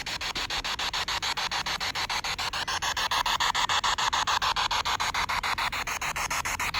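Spirit box sweeping through radio stations: a steady hiss of static chopped into rapid, evenly spaced pulses, with faint snatches of wavering tone in the middle.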